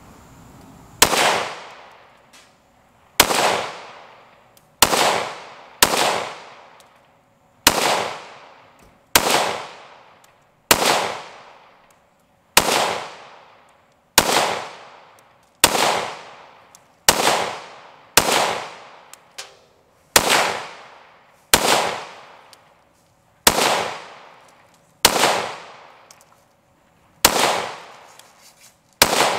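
A 5.7×28mm pistol fired in slow, aimed single shots, about eighteen in all, roughly one every one and a half seconds. Each sharp crack is followed by a ringing echo that dies away over about a second.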